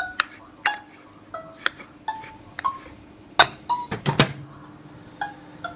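A metal spoon clinking against a ceramic bowl while stirring chopped boiled egg and onion: irregular sharp taps, each ringing briefly, with a heavier knock about four seconds in. A faint steady hum lies underneath.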